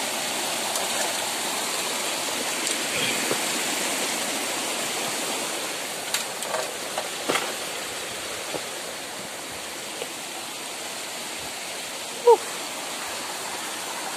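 Small forest stream rushing over rocks, a steady hiss that grows quieter after about six seconds, with a few light snaps and clicks in between. A single brief pitched chirp stands out near the end.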